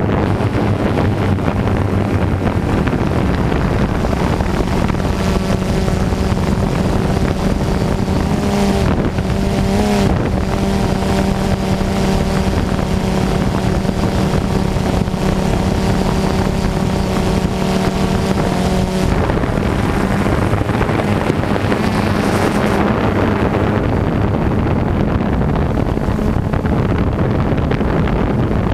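DJI Phantom 2 quadcopter's motors and propellers whirring steadily as heard from the GoPro mounted on it, with wind rushing over the microphone. A stronger pitched whine comes in about five seconds in, wavers around nine to ten seconds, and drops back near nineteen seconds.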